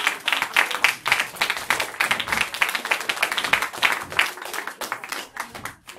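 Audience applauding, many hands clapping densely, dying away just before the end.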